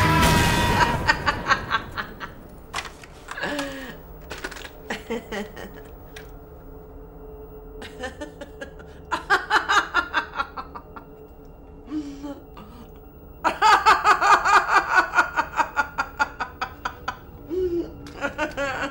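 A woman laughing to herself: scattered snickers, then two long runs of quick, rhythmic laughter, the second and loudest from about halfway through. Music fades out in the first second.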